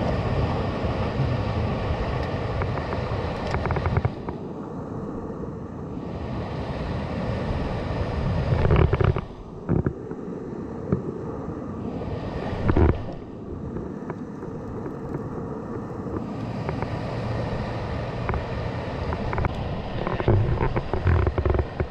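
Wind buffeting the microphone over surf breaking against the rocks, swelling and easing in long gusts. A few short knocks sound about nine seconds in, near the middle and near the end.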